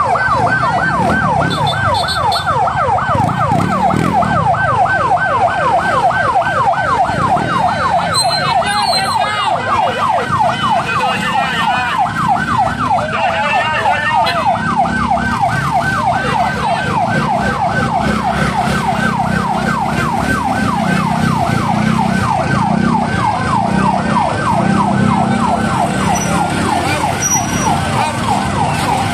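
Rescue truck's electronic siren sounding a fast yelp, its pitch sweeping up and down about four times a second without letup.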